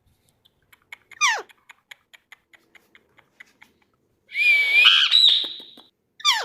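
Pet parrot calling: a sharp, steeply falling whistle, then a run of soft quick clicks at about four a second, a loud harsh call lasting over a second, and another falling whistle near the end.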